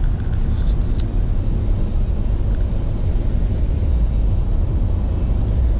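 Steady low road rumble inside a moving vehicle's cabin: tyre and engine noise while driving.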